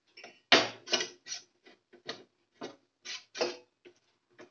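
Steel spoon stirring arrowroot flour into water in a stainless steel pot, scraping and knocking against the pot about two or three times a second with a short metallic ring, breaking up the lumps in the slurry.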